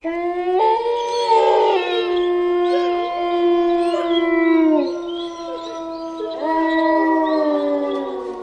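Horror 'devil' sound effect: layered, drawn-out howling tones that start suddenly and come in three long swells, each ending in a downward slide in pitch.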